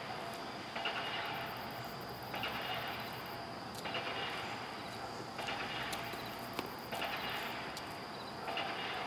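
Insects calling in the trees: a buzzing chorus that swells and fades about every second and a half, over a steady high tone.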